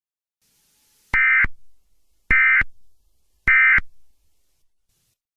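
Emergency Alert System end-of-message signal: three short bursts of the SAME digital data warble, about a second apart, marking the close of the alert.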